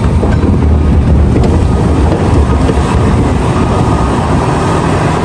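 Large hydraulic mining excavator working under load as it digs into broken ore: the diesel engine and hydraulics make a loud, steady low rumble.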